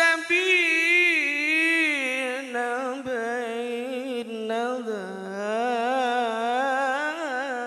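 A man reciting the Quran in the melodic tilawah style, amplified through a microphone, drawing out one long ornamented phrase whose pitch wavers and glides up and down before it fades out near the end.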